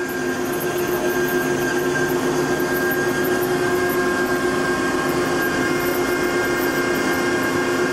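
Marvel 15A/S automatic horizontal band saw running mid-cut through bar stock, a steady machine hum and whine made of several held tones over a constant rushing noise.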